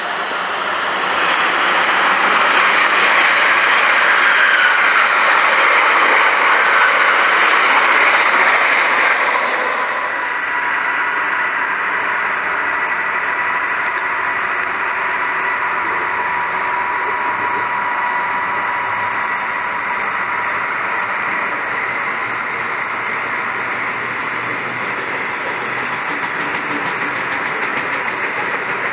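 An LNER Azuma passes at speed with a loud rushing noise for about the first ten seconds. After that, a DB Class 66 diesel locomotive and its train of box wagons roll past more quietly, with a steady high whine.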